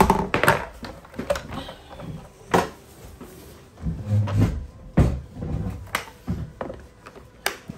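Sharp knocks and clatters of a bamboo kids' plate and a plastic high-chair tray set down on a stone countertop. About four seconds in there is a low muffled rustle of a knit sleeve brushing over the phone.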